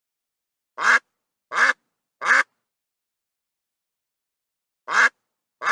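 A duck quacking: three quacks in quick succession, a pause of about two and a half seconds, then two more quacks near the end.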